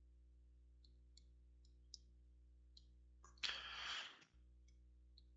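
Near silence over a low electrical hum, with a few faint scattered clicks, then a short burst of noise lasting under a second about three and a half seconds in.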